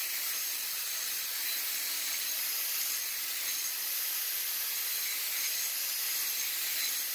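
Handheld electric angle grinder grinding down the steel end of a tractor's hydraulic top link so it fits the Cat II linkage: a steady, even, high hiss throughout.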